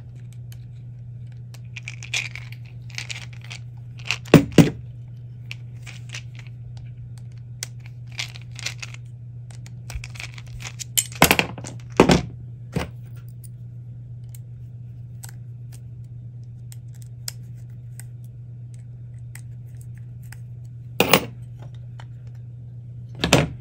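Small metal parts of a cassette deck being handled while the capstan motor and its mounting plate are taken out of the chassis: scattered light clicks and scrapes with a few sharper metallic knocks, over a steady low hum.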